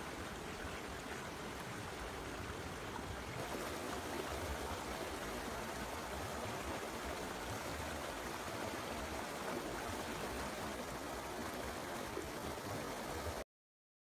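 Forest stream flowing over rocks: a steady rush of running water that gets a little louder about three seconds in and cuts off suddenly just before the end.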